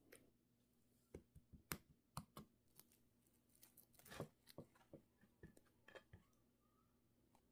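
Flaky, crisp-crusted pastry bread torn apart by hand: the sugar-topped crust crackles and crunches in a quick run of sharp crackles, with the biggest crunch about four seconds in.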